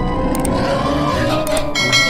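Background music with sound effects over it: pairs of short, sharp mouse-click sounds about a third of a second in and again about one and a half seconds in, then a bright notification-bell chime that rings on near the end.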